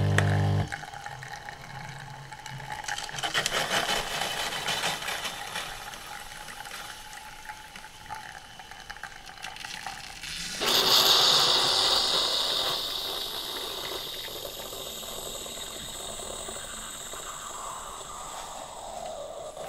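Bosch Tassimo pod machine at the end of a brew: its pump hum cuts off about a second in, leaving the drink trickling and gurgling into the glass. About ten seconds in a loud hiss of air and steam starts suddenly and slowly fades, the machine purging the disc as the cycle ends.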